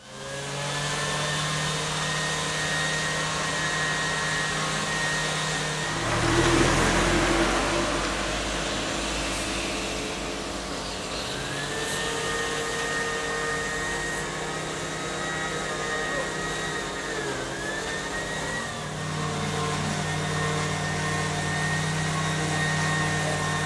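A machine's motor running with a steady whine, with a louder rushing noise about six to eight seconds in and a shift in its pitch near the end.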